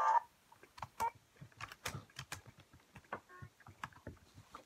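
Handling noise: a string of irregular light clicks and taps, as of hands fiddling with small objects.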